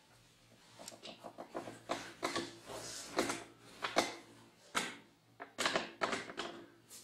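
Irregular clicks, knocks and short creaks, several a second, the loudest a little after three seconds and about five and a half seconds in: handling noise as the camera is moved and panned.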